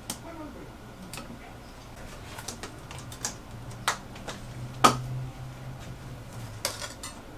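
Scattered light clicks and metallic clinks of hand work with tools and small parts, with one sharper click about five seconds in, over a faint low hum.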